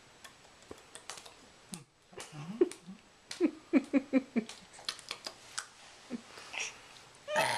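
A baby's hands patting and rubbing a bald head: a string of light skin taps and slaps, with short low vocal murmurs in the middle and a louder breathy burst near the end.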